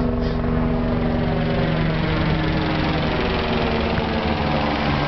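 An engine running steadily, with a low hum that shifts slightly in pitch partway through, over a steady rushing background.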